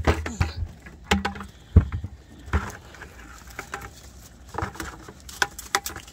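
Irregular knocks, clicks and rattles from a round mesh crab pot being lifted and shaken out in an aluminium boat. The loudest knock comes a little under two seconds in, with a quick run of clicks near the end.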